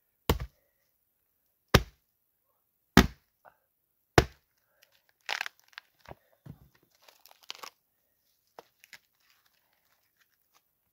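Hatchet chopping into a birch log four times, a little over a second apart. Then the wood cracks and crackles as the split pieces are pried and torn apart by hand.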